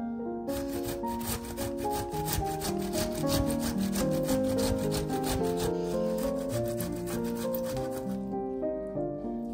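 Ripe tomato being grated on a stainless steel box grater: a run of quick, even rasping strokes that starts about half a second in and stops near the end. Background music plays throughout.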